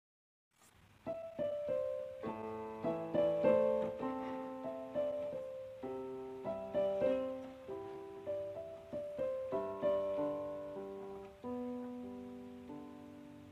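Piano music: after a brief silence, a slow run of single notes and soft chords, each note struck and left to ring out.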